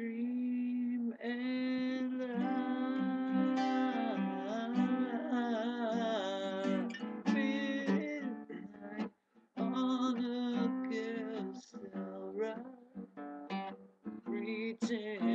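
Guitar music with a melodic line of bending, wavering notes over a held low note, breaking off briefly about nine seconds in.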